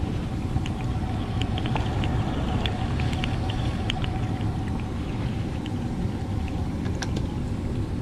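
PVC condensate drain line gurgling, with irregular small pops and trickles over the steady low hum of the running air handler. The gurgling is the sign of a clogged drain line with water backing up in the drain pan.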